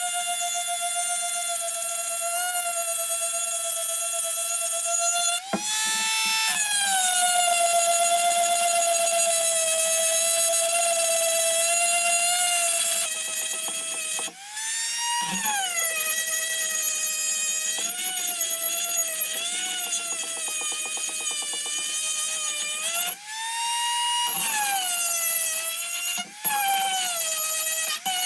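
A small high-speed motor whining steadily. Its pitch sags and wavers, then climbs back up quickly several times before sagging again.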